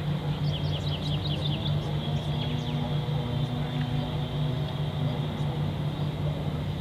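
A steady low mechanical hum under a quiet outdoor hiss. A bird breaks in with a quick run of short high chirps about half a second in, then a few more chirps just after two seconds.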